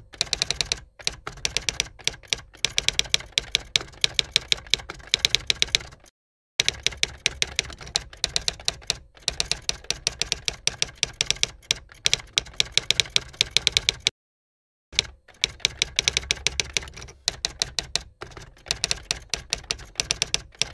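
Typewriter sound effect: a rapid, even run of key clacks, several a second, that stops dead twice for under a second, about six and about fourteen seconds in.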